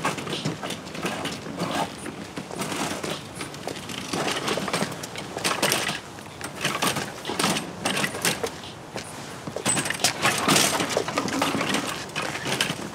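Folding wire shopping cart loaded with newspapers rattling and clattering as it is pulled, its wire frame jangling and its wheels bumping over steps and icy ground in a dense run of irregular knocks.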